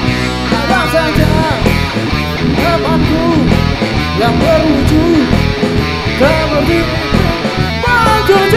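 Live rock band playing an instrumental passage: a guitar line with bending notes over bass and steady drum strokes.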